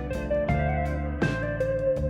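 Background music: bluesy guitar over a steady bass line, with plucked notes and slides.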